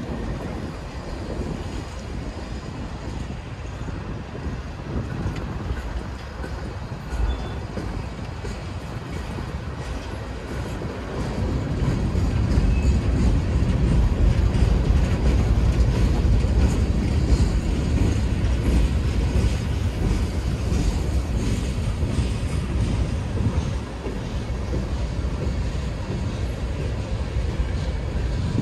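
Freight cars of a mixed freight train, covered hoppers and tank cars, rolling past on steel rails with a steady rumbling rush of wheels on track. The rumble swells louder from a little before halfway through for about twelve seconds, then eases back.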